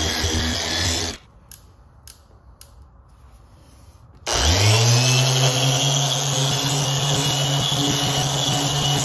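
Griot's Garage 3-inch random orbital polisher running with a foam pad on painted bodywork, cutting off about a second in. After a few seconds of quiet with a few faint clicks it starts up again, its pitch rising quickly and then holding steady at a higher speed setting.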